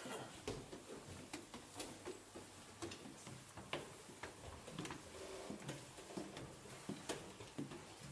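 Faint, irregular sharp clicks and knocks, about one or two a second.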